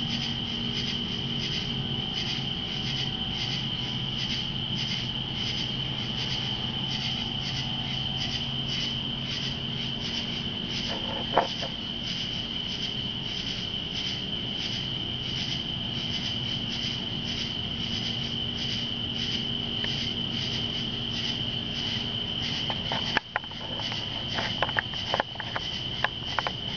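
A chorus of night insects: a steady high trill with a pulsing call repeating about twice a second above it. There is one sharp click about eleven seconds in, and a run of clicks and knocks near the end.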